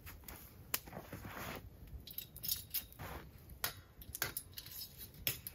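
Metal chain clinking as it is handled while being rigged to a tripod over a campfire, with about seven sharp, scattered clinks and some rustling between them.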